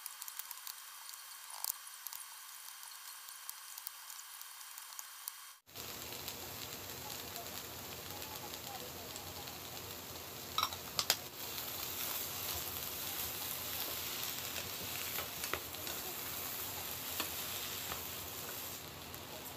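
Root vegetables, onion and konjac sizzling as they are stir-fried in a frying pan, with a wooden spatula clacking against the pan now and then. The sizzle sounds thin for the first six seconds or so, then fuller.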